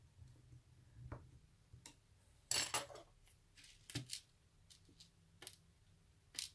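A few sharp clicks and light metallic clinks of a small screwdriver and screws being handled and set down on a desk, the loudest a short rattle about two and a half seconds in.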